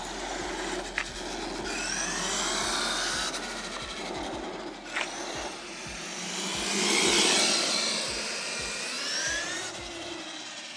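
Traxxas E-Revo Brushless Edition RC monster truck driving on asphalt: the electric motor's whine rises and falls with the throttle over tyre noise, loudest about seven seconds in as it passes close. Two short sharp clicks come about one second and five seconds in.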